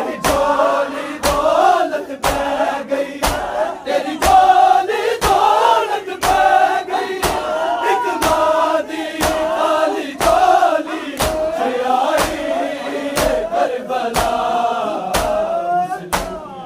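Matam: a crowd of men beating their chests in unison, with sharp slaps about twice a second, under massed male voices chanting a noha.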